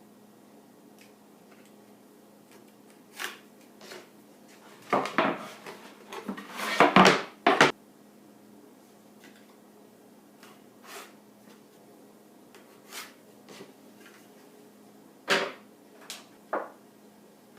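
Scattered knocks and taps of plywood pieces and hand tools being handled on a workbench, with a burst of louder clatter about five to eight seconds in.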